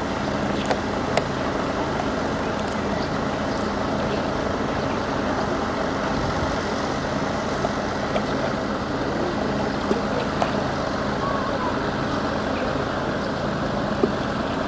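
Steady engine rumble with a low hum, and a few faint clicks.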